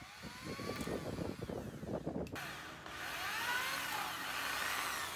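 Electric drill boring a hole through a small L-bent piece of steel strip about 1 mm thick; the motor's whine glides up and down in pitch as the bit cuts, over the grinding of the bit in the metal.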